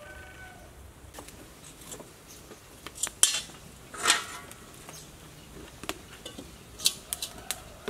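Several sharp clanks and knocks as a metal wok is handled and set on a wood-fired clay stove.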